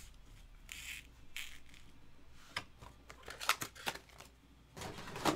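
Light handling noises of trading-card packs being set down and squared into stacks on a table: scattered soft taps and rustles, a quick run of sharper taps in the middle, and a longer scraping rustle near the end.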